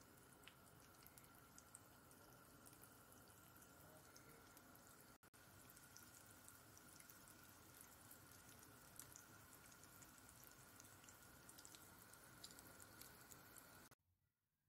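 Hot oil sizzling and crackling steadily as fish shaami kebabs shallow-fry in a pan, with many small pops. It cuts off suddenly near the end.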